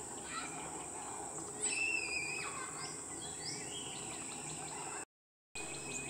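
A songbird sings clear whistled notes over a steady high insect drone. About a second and a half in comes a held note that drops sharply in pitch, followed by a few shorter, higher notes. Near the end the sound cuts out completely for about half a second.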